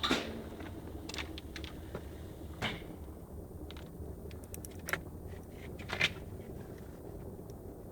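Tools and plastic parts being handled on a workbench: scattered sharp clicks and knocks, five of them louder than the rest, over a low steady hum.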